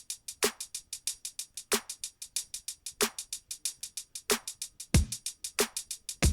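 Hip hop drum loop playing back: fast steady hi-hats with a sharper hit about every 1.3 seconds, and two deep kicks in the second half.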